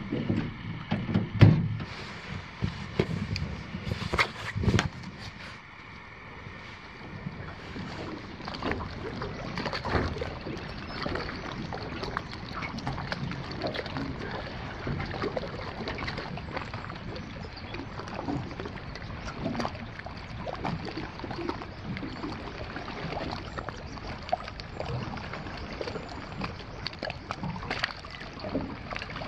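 A few knocks and bumps in a small aluminium boat, then water lapping and splashing against its hull as it moves slowly along the shore, in a steady crackle of small splashes.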